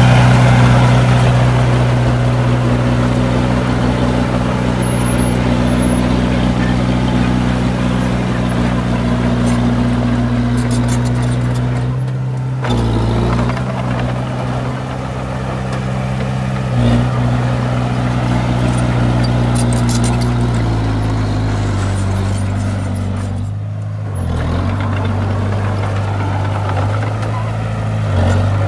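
Heavy diesel engine of earthmoving machinery running steadily at a low, even pitch. The engine note shifts a few times and briefly dips about twelve seconds in and again near twenty-four seconds.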